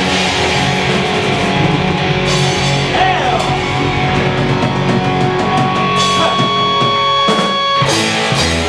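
Heavy metal band playing live, with distorted electric guitars, bass and drums. Sliding pitch lines come in mid-way, and a long held high note sounds in the second half.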